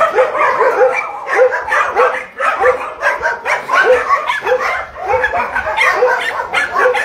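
Several dogs barking over one another, a few barks a second without a break.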